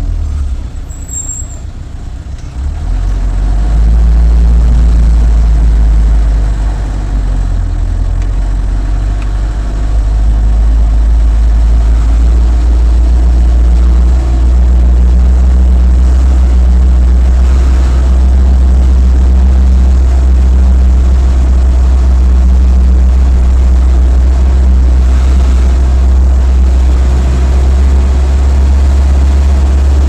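Motor vehicle's engine and road noise heard from inside the cabin while driving: a loud, steady low drone, quieter for the first few seconds and louder from about four seconds in.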